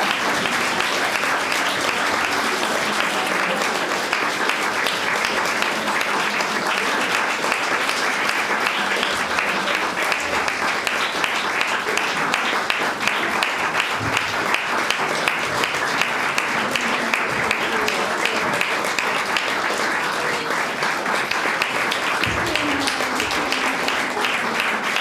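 Audience applauding: dense, even clapping that holds at a steady level.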